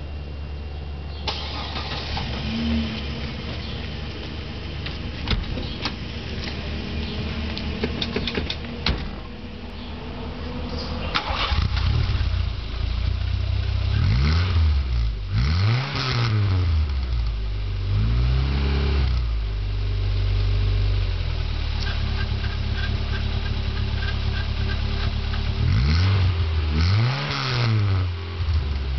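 VW Golf MK1 GTI four-cylinder engine heard through a catless exhaust: it starts and settles about a second in, then idles. From about halfway on it is revved in short blips several times, each rising and falling back to idle.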